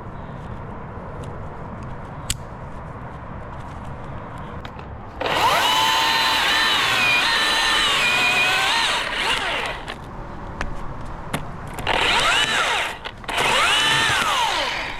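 Battery electric chainsaw running in three bursts: a long run starting about five seconds in, then two shorter ones near the end. Its high motor whine sags and wavers in pitch under load as it cuts wood, and rises and falls as the chain spins up and down.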